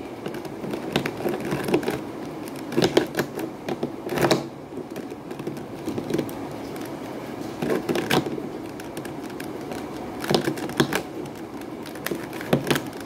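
Plastic 3x3 Rubik's cube being turned by hand, its layers clicking and clacking in irregular runs of quick twists.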